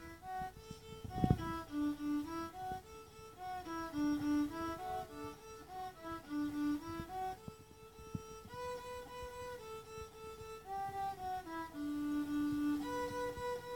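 Violin played solo with a bow: a simple melody of short, separate notes, with a few longer held notes in the middle and near the end. A low thump about a second in.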